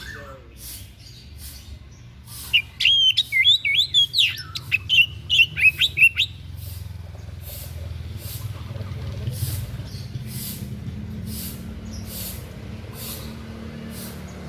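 A small songbird, called a 'dada putih' (white-breast), sings a rapid burst of varied, quickly gliding chirps lasting about four seconds, starting a couple of seconds in. Faint high ticks repeat steadily about every 0.7 seconds throughout, over a low hum.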